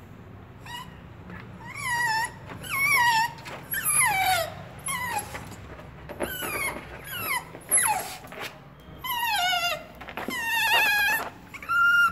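Small dog whining in a quick run of short, high whimpers, each falling in pitch, about a dozen in all.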